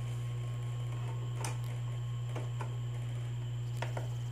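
A few light plastic clicks and taps as a DVD is set into the open disc tray of a karaoke DVD player and the front-panel buttons are reached for, over a steady low hum.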